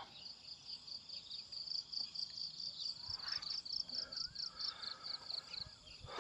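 Insect chirping in a steady series of short, high chirps that stop near the end.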